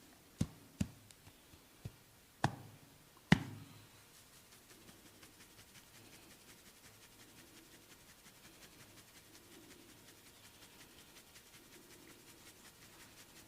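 Massage percussion from a barber's hands on a client's head and neck: five sharp smacks over the first three and a half seconds, the last the loudest. After that only faint soft rubbing.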